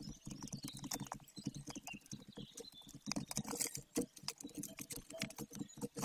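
Golden eaglet tearing at a prey bird on its stick nest: irregular clicks, snaps and rustles from beak, talons and nest twigs as it pulls at the carcass.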